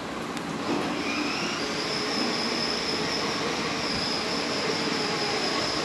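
Electric motor and gearbox of a battery-powered ride-on toy car whining steadily as its plastic wheels roll over a hard floor, the whine setting in under a second in.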